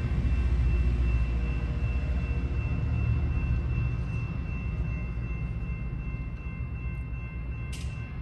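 A train's low rumble fading as it pulls away from a grade crossing, with the crossing signal's steady ringing tones over it. A short, sharp high sound comes near the end as the gate arms start to rise.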